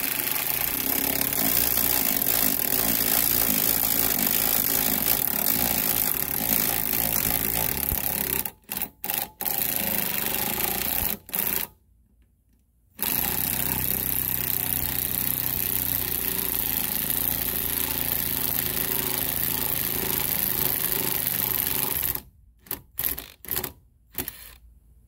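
Ryobi P235 brushed cordless impact driver hammering in long trigger pulls. It stops briefly with a few short stabs around eight seconds in and again near the end.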